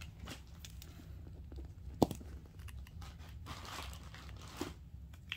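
Off-camera handling noises: scattered light clicks and one sharp tap about two seconds in, with a brief soft rustle a little later.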